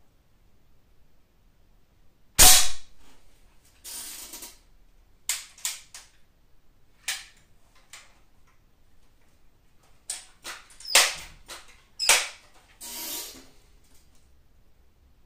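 Multi-pump pneumatic air rifle being fired and handled: one loud shot about two seconds in, then two more sharp reports about eleven and twelve seconds in. Between them come scattered sharp clicks of the action and two short swishes, one about four seconds in and one near the end.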